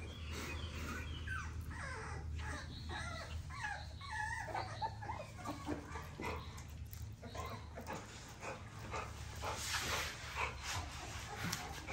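Four-week-old XL pit bull puppies whimpering and squealing in many short, high, sliding cries, while one is held and given a dose of oral dewormer paste.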